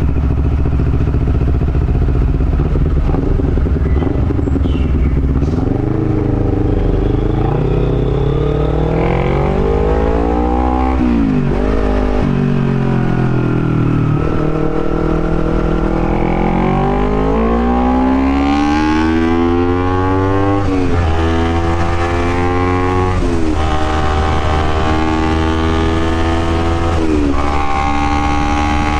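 Honda CBR250RR motorcycle engine accelerating through the gears while riding: the pitch climbs, then drops sharply at each of four upshifts, settling into a steadier cruise near the end.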